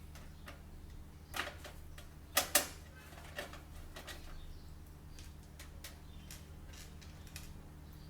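Screws being driven into the motherboard standoffs of a desktop computer case: scattered small metal clicks and ticks of screwdriver and screws, the loudest a sharp pair about two and a half seconds in.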